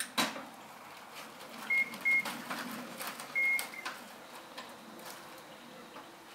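A sharp click, then three short, high electronic beeps close together, the last one longer, with light clicks and knocks around them.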